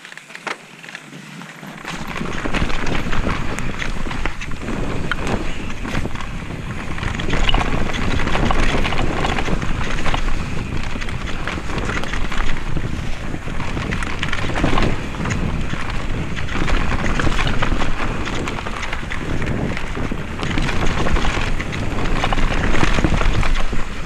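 Specialized Kenevo electric mountain bike descending a rough dirt trail at speed: wind buffeting the camera microphone over tyre noise and the clatter and rattle of the bike over roots and rocks, starting about two seconds in.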